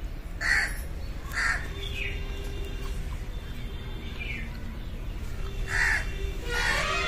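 A crow cawing: two harsh caws about a second apart near the start and two more near the end, with fainter bird calls between.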